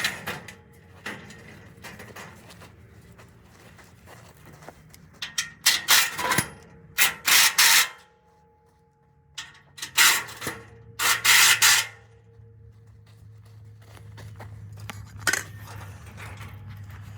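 Short bursts of scraping and rubbing, four or so, each lasting up to about a second, with a steady low hum starting in the second half.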